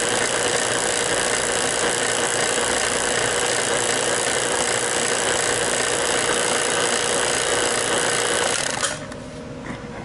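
HVAC vacuum pump running steadily, blanked off with only a micron gauge on it and pulled down below 100 microns. It is switched off near the end and the sound cuts off suddenly.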